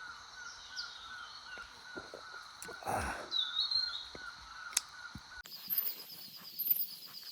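Outdoor rural ambience of birds and insects: a steady, rhythmic insect-like chirping, a few high bird calls, and one louder, harsh bird call about three seconds in. About five and a half seconds in, the background switches abruptly to a fast, high-pitched insect trill.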